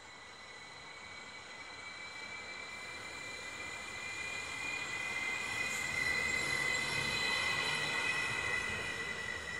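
Stadler FLIRT electric commuter train rolling slowly past while slowing for its station stop, with a steady high-pitched squeal that grows louder to a peak about six seconds in and then eases off.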